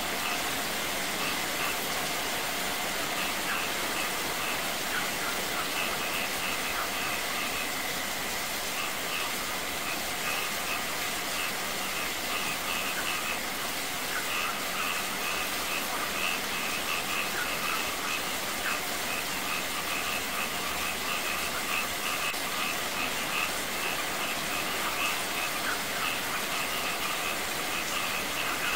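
Steady rain falling on stone and water, mixed with water spilling over a small rock waterfall and a thin stream splashing down from above. Short high chirps repeat over the rain much of the time.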